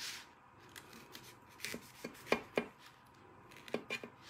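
Paring knife cutting into pineapple flesh on a cutting board: a handful of short, crisp cutting clicks in two small groups, about a second and a half apart.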